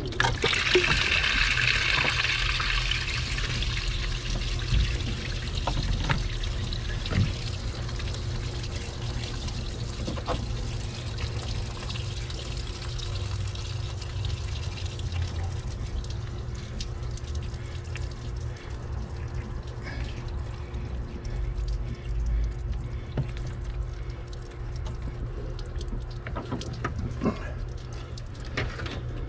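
Hands handling rubber hoses and a string under a truck's hood: faint rustling and light clicks, with a hiss in the first few seconds, over a steady low background rumble.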